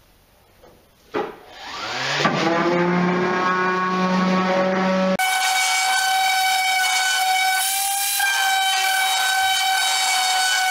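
Random orbit sander switched on about a second in, its motor whine rising as it spins up and then running steady. Partway through, the sound changes abruptly to the sander working on the walnut board: a steady, higher whine with a hiss.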